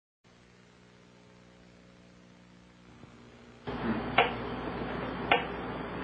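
A faint electrical hum, then from about three and a half seconds in a steady hiss with a sharp click about once a second: the pulses of a Soviet LIDA machine.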